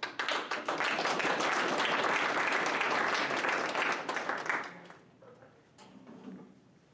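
A small group applauding with dense, fast clapping that stops about four and a half seconds in.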